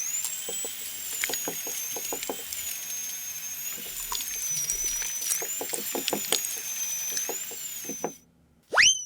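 Small battery motor running with a high whine that wavers slightly in pitch, over many small plastic clicks and rattles. It stops about eight seconds in, then spins up briefly again near the end with a quick rising whine.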